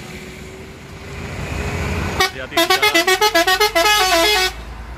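Hino FG235TI truck's multi-tone musical air horn (telolet) playing a quick tune of short notes, about seven a second, stepping up and down in pitch, from about two seconds in until it cuts off near the end. Beneath it, the truck's diesel engine rises in revs as it pulls away over the first two seconds.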